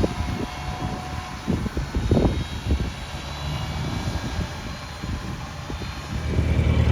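Gusty wind buffeting the microphone in uneven low thumps over a running engine; about six seconds in, a steady, louder engine drone comes up.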